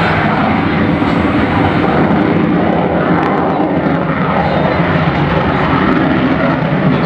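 An aircraft's engine noise as it flies a display pass, loud and steady, with the pitch sliding down around three to four seconds in as it goes by.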